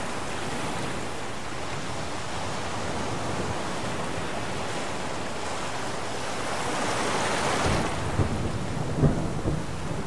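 Steady rush of storm rain. Thunder swells about seven seconds in, then cracks and rumbles in a few sharp peaks near the end.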